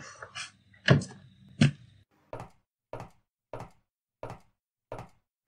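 Footsteps of a person walking: a few louder thuds in the first two seconds, then evenly spaced lighter steps, about one and a half a second.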